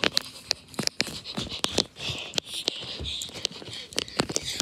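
Irregular taps, scrapes and rustling from a green plush toy being handled and brushed right against the microphone.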